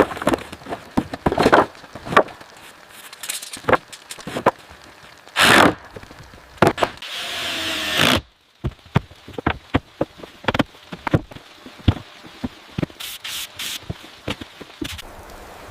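Woodworking sounds: a run of sharp wooden knocks and taps with scraping and rubbing. A loud rasp comes about five and a half seconds in, and a longer rasping, sawing-like stretch runs from about seven seconds to just past eight, where it cuts off suddenly.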